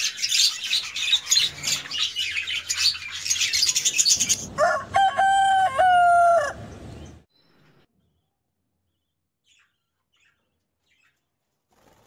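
Budgie chicks in a nest box chirping rapidly and high-pitched, begging as the hen feeds them, for about four seconds. Then a rooster crows once, about two seconds long.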